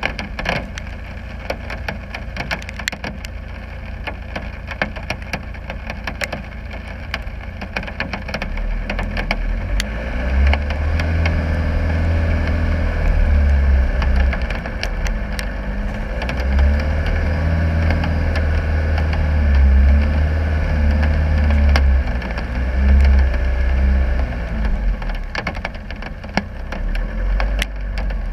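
Land Rover Discovery 300 Tdi's 2.5-litre turbodiesel engine pulling off-road, a deep drone that swells about ten seconds in and eases near the end. Many sharp ticks and clicks run over it throughout.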